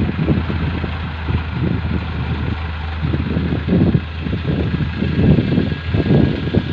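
Diesel tractor engine running steadily as its front-end loader lifts and carries a bucket load, with uneven low rumbling over the steady hum.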